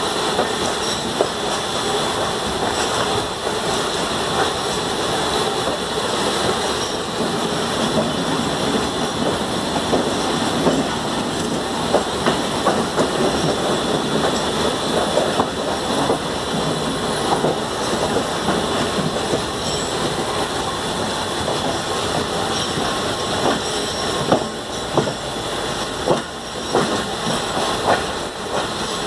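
Passenger train rolling along at low speed, heard from an open coach door: a steady rushing running noise with the steel wheels clattering irregularly over rail joints and points.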